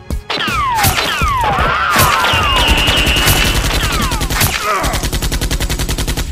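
Dubbed-in machine-gun sound effects: loud gunfire, turning into a fast even rattle of about ten shots a second in the last second and a half, with several falling whistles and a held high whine in the first half.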